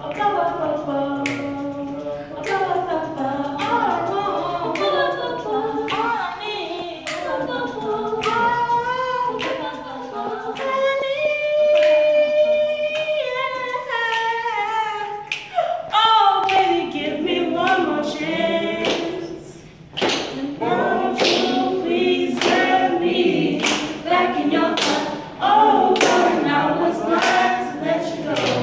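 Small group of teenage voices singing a cappella, a soloist out front with the others backing, over sharp hand claps on a steady beat. After about twenty seconds the claps come faster, about two a second.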